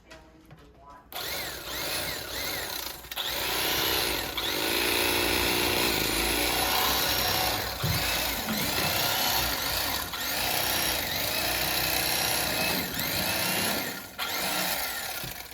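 Small handheld electric motor tool, most likely an electric fillet knife, running for most of the span as it cuts through fish. Its pitch repeatedly sags and recovers under load. It starts about a second in and stops shortly before the end.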